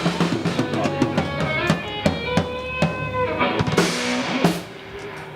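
Emo punk rock band music: drum kit with bass drum and snare hits under held guitar and bass notes, ending on a final hit about four and a half seconds in that rings out.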